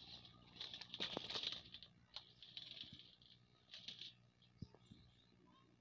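Faint wet rustling and slapping of freshly caught fish being handled in a tub, in several short bursts with a few sharp clicks, dying away after about four seconds.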